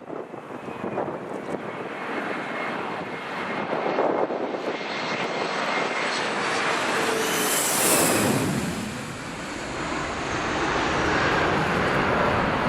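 Jet airliner passing low, its engine noise swelling to a loud whooshing peak about eight seconds in and then falling away.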